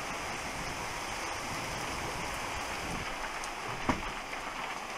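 Heavy rain falling steadily, heard through a window. A single short knock about four seconds in.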